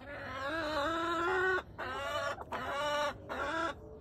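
Hens making drawn-out calls: one long call of about a second and a half, then a run of shorter ones.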